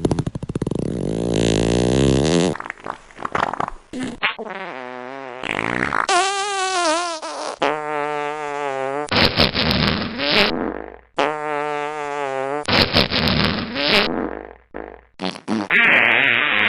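Fart sound effects played back to back, about ten in a row, each a second or two long. Some are buzzing with a wobbling pitch, others are lower and rougher.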